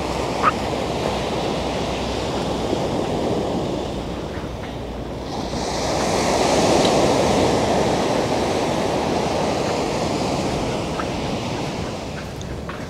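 Sea surf washing onto the shore, one wave surging about five seconds in and easing off over the next few seconds, with wind buffeting the microphone.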